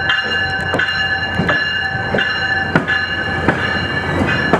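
GO Transit bilevel coaches rolling slowly past, wheels clicking over rail joints and switches. Over this, a bell rings steadily, struck about once every 0.7 seconds.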